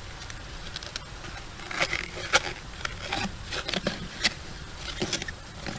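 Spade digging in wet beach sand: a series of sharp scrapes and crunches, busiest between about two and five seconds in.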